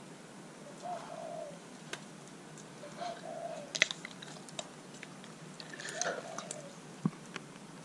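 Glitter slime full of foam beads being squeezed and stretched by hand: sticky squelches with scattered crackling pops and clicks, the sharpest about four seconds in. A few short, low hooting tones sound every two to three seconds.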